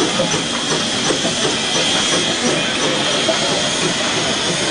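Standing Denver & Rio Grande Western No. 340, a C-19 2-8-0 steam locomotive, hissing steam steadily, with people's voices faintly underneath.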